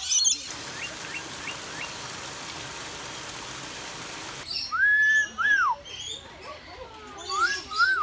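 Small garden waterfall splashing steadily into a pond, with a few faint bird chirps. About four and a half seconds in it gives way to a parrot, a black-headed caique, whistling loud rising-and-falling notes in two pairs.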